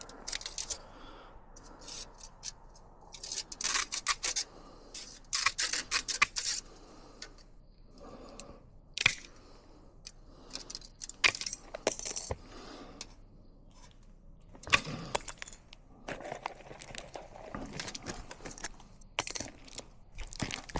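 A metal micro-mesh gutter guard panel being trimmed to make an end piece: bursts of crisp metallic cutting and clinking, with the light metal panel rattling as it is handled.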